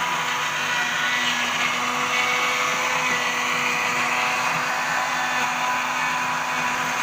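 Electric countertop blender running steadily, churning chopped green vegetable pieces in water, with a constant motor hum.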